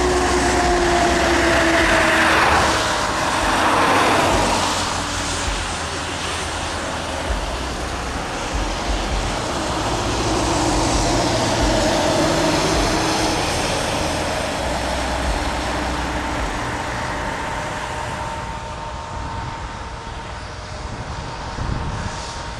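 Traffic passing on the road: vehicles rise and fade as they go by, the first with an engine tone that falls in pitch over the opening seconds and another about ten to thirteen seconds in, over a steady low rumble.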